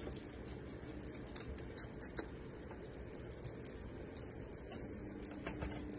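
Faint rustling with scattered soft clicks and ticks, as a kitten and a gloved hand move about in a padded cat bed among toys.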